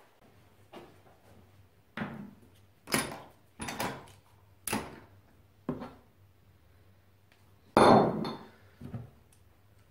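Metal parts of a motorcycle rear shock absorber being handled and set down on a wooden workbench: a string of separate clinks and knocks about a second apart, the loudest a heavier knock about eight seconds in.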